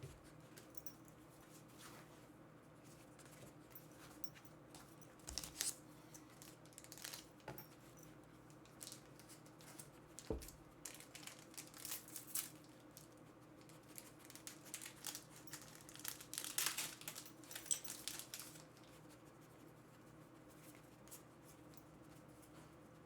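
Trading-card booster packs being opened: foil wrappers torn and crinkled in scattered short bursts of rustling, bunched in the middle of the stretch.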